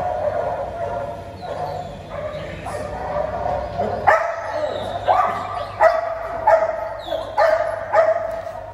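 Belgian Malinois whining and yipping, then barking about six times at a little over one bark a second through the second half, at a ball held up by its handler.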